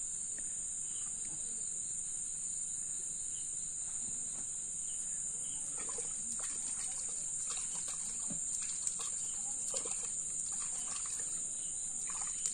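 Steady high-pitched night chorus of crickets, with a few faint short clicks and knocks in the second half.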